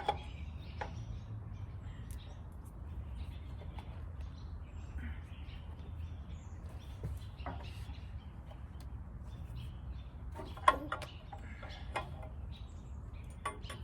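Scattered metal clinks and knocks from hand work on the dismantled generator's parts, the sharpest near the end, over a low steady hum, with birds chirping now and then.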